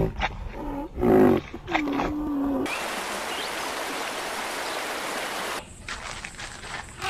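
Greater one-horned rhinoceros calling: a deep roaring call about a second in, then a drawn-out, steady lower call. A steady rushing hiss follows for about three seconds, then drops away into a few faint knocks.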